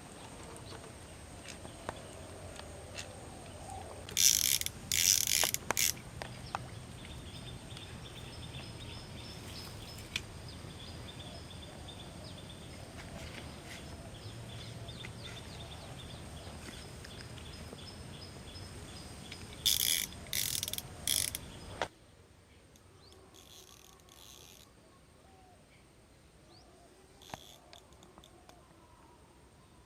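Fishing reel clicking and ratcheting in a few short, loud bursts, twice with a long gap between, over a steady outdoor background with faint bird chirps. Near the end the background suddenly drops quieter.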